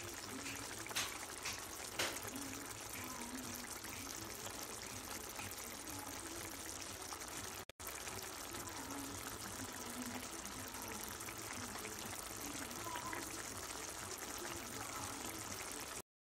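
Thick potato and pea gravy simmering in a pan: a steady bubbling hiss, with a couple of light clicks about one and two seconds in.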